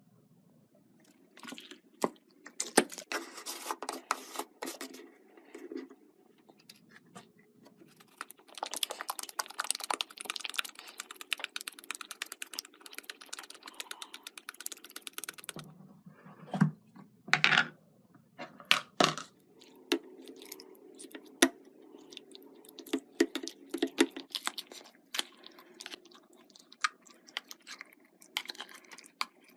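Slime being squeezed and worked by hand, giving runs of crisp crackling clicks and several sharp pops.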